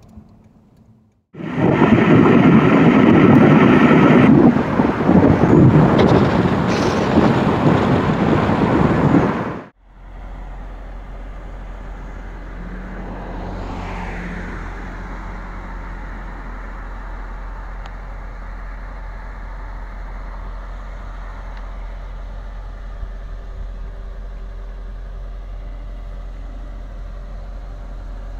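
Loud wind and road noise rushing over the microphone in an open-top car at speed. About ten seconds in it drops away to the steady, quieter low hum of the Mercedes SL 500's V8 idling.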